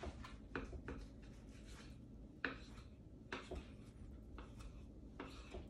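A knife trimming fat from a raw brisket: a handful of short, faint scrapes and taps as the blade cuts through the fat and meets the wooden cutting board.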